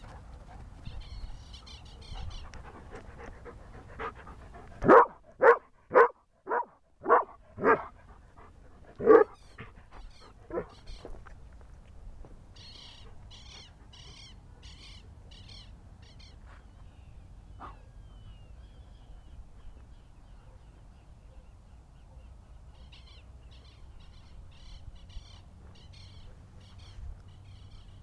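A dog barking in a quick run of about six barks about five seconds in, then two more a few seconds later. A bird calls in runs of rapid high chirps before and after.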